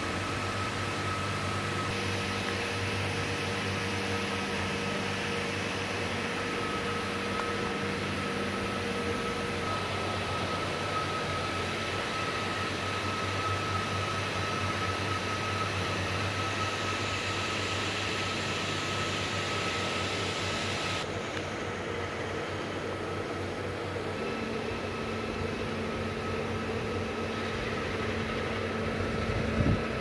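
Steady drone of running machinery: a low hum with a thin, constant high whine over it. A short knock near the end.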